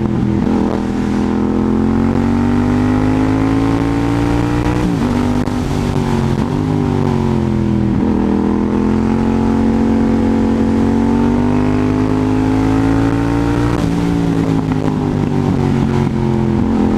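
Yamaha MT-07's parallel-twin engine running under load on the move. Its note climbs slowly and dips sharply several times, about five, eight and fourteen seconds in.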